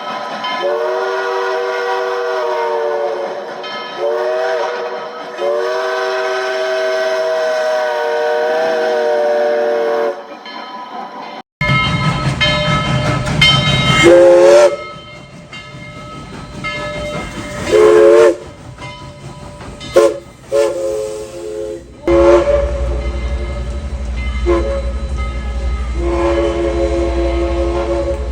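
Southern Railway 4501's Princeton three-chime steam whistle blowing a series of blasts, three tones sounding together as one chord. Long drawn blasts come first, then short toots and longer blasts, with a steady low rumble under the last few.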